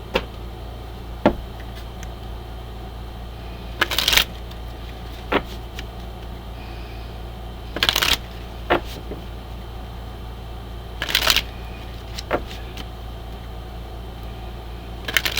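A deck of oracle cards being shuffled by hand: four short bursts of shuffling, roughly every three to four seconds, with light taps and clicks of the cards in between.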